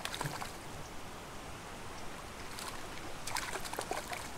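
A hooked brook trout splashing at the surface of a pond as it is played on a line: several short splashes, more of them in the second half, over a light steady hiss.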